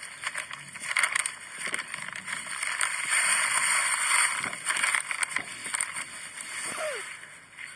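Plastic bag rustling and crinkling as moist soil is scooped and poured into it, with scattered small clicks and taps.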